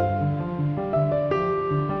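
Background instrumental music: a melody of single notes changing every fraction of a second over a repeating bass line.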